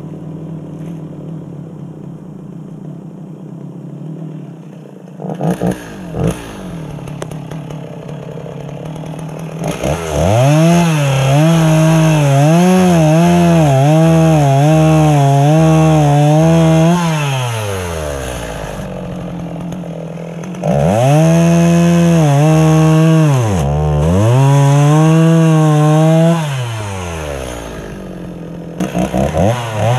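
Stihl Farm Boss chainsaw blipped briefly twice about five seconds in, then held at full throttle cutting through a dead apple-tree log, its pitch wavering as the chain bogs in the wood. It drops back to idle, makes a second long cut, and idles again. Near the end it is revved in short blips.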